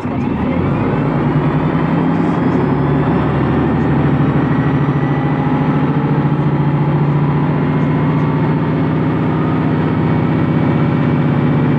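Volvo B10M bus's underfloor six-cylinder diesel engine running steadily under load, heard from inside the bus. A high whine falls in pitch over the first couple of seconds, and the engine grows louder about a second in.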